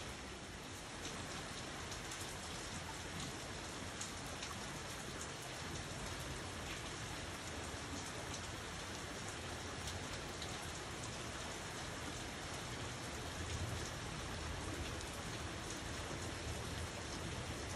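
Steady rain falling on hard surfaces and plants: an even hiss with scattered sharp ticks of single drops landing close by.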